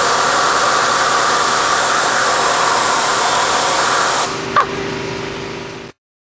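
Compressed air hissing steadily from an air compressor's blow nozzle. The hiss drops about four seconds in, a sharp click follows, and the sound cuts off abruptly near the end.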